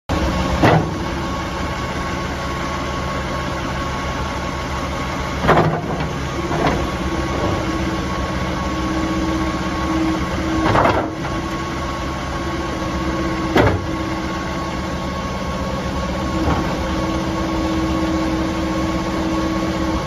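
John Deere 331G compact track loader's 91 hp Yanmar diesel running steadily while the hydraulics raise and lower the lift arms and bucket. A steady whine rises in stretches over the engine, and a handful of sharp knocks come through.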